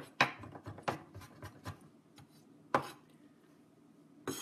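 Chef's knife dicing ginger on a cutting board: a quick run of chopping taps, then a pause and two single, louder strikes.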